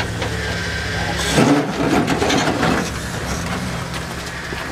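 Off-road vehicle's engine running steadily at low revs, with a short louder noise about a second and a half in.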